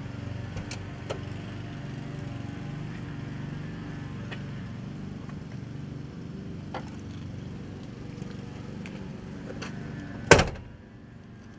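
Pickup truck engine idling with a steady low rumble while the driver climbs out, with a few small clicks and knocks. About ten seconds in, the driver's door is slammed shut with one loud bang, and the rumble is quieter after it.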